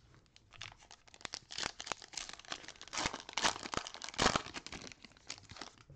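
Foil wrapper of a Panini Prizm basketball card pack being crinkled and torn open by hand, a dense crackling that is loudest a little past the middle.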